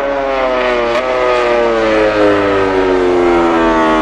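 Racing motorcycle engine sound: a steady drone whose pitch slowly falls, with a small step up about a second in.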